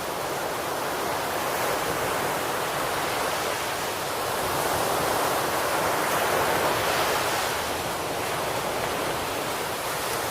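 Steady rushing noise like surf or running water, swelling slightly for a few seconds in the middle.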